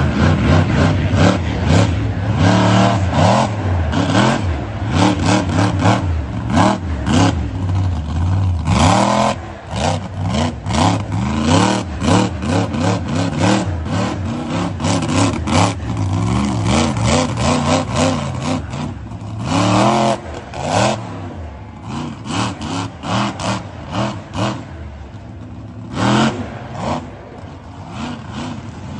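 Monster truck engine revving hard in repeated throttle bursts, its pitch climbing and falling with each one. It is quieter for much of the last third, with one more burst near the end.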